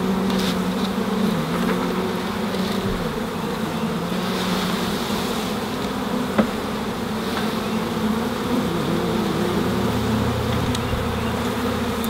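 A large mass of honey bees from a package being shaken into a hive, buzzing steadily in a dense hum, with one short knock about six seconds in.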